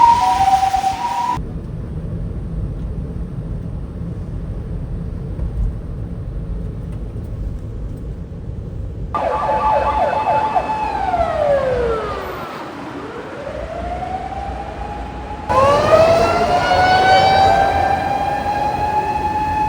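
Emergency vehicles' sirens, in several short cuts. First a Japanese ambulance's two-tone hi-lo siren that stops about a second in, then several seconds of low traffic rumble with no siren. From about nine seconds in comes a wailing siren that glides down and rises again, and after a sudden change a wail that rises and holds steady.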